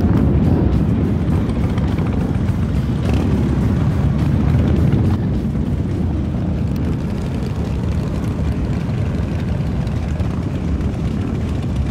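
A group of motorcycles riding at speed together: a loud, dense engine rumble that eases slightly about five seconds in.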